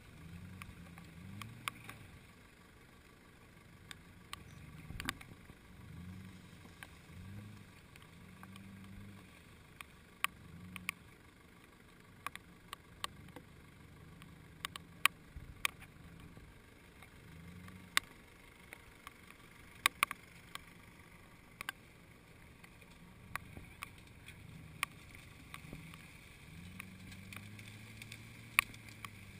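Jeep Grand Cherokee WJ engine running at low revs as it crawls through a ditch off-road, its pitch rising and falling again and again with the throttle. Scattered sharp clicks, the loudest sounds, cut through it.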